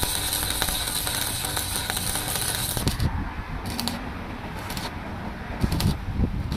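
Stick (shielded metal arc) welding on a steel truck chassis frame: the arc's steady crackling hiss for about three seconds, then it drops away, leaving short bursts of crackle about once a second.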